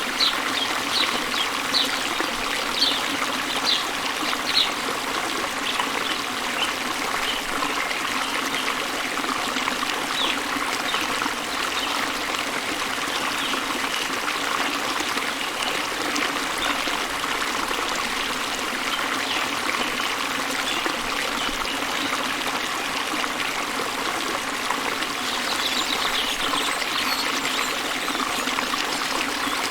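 Small waterfall pouring into a river: a steady rush of flowing, trickling water, with short bright ticks over it in the first few seconds.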